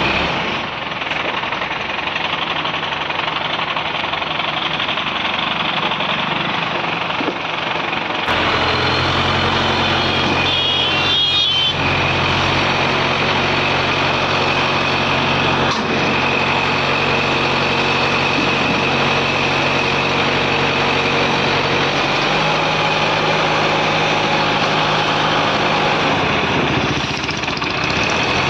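ACE 12XW hydra crane's diesel engine running under load as it hoists an overturned truck upright. About eight seconds in the engine note grows louder and steadier, and a steady high whine runs above it from a few seconds later.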